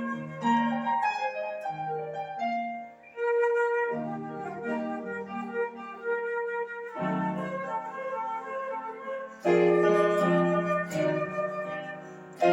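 Flute playing a melody of short and held notes over an accompaniment of lower notes.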